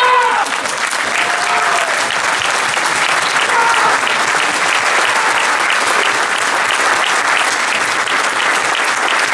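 Audience applauding steadily, with a few short shouts over the clapping; a loud shout trails off in the first half-second.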